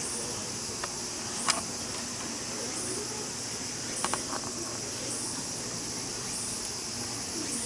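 Steady high-pitched insect chorus that swells in a regular pulse about once a second, with a few sharp clicks: one about a second and a half in, and a quick pair about four seconds in.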